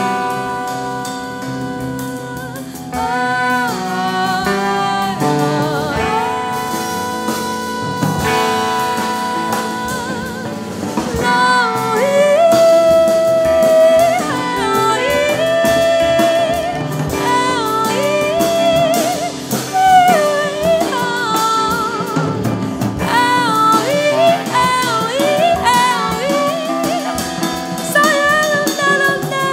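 Jazz band music with drum kit and a singing voice carrying a wavering melody, growing louder about three seconds in and again around eleven seconds.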